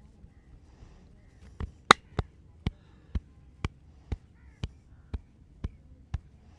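Sharp hand slaps from a masseur's percussive tapping in a head and back massage, starting a little after a second and a half in and falling into an even rhythm of about two a second.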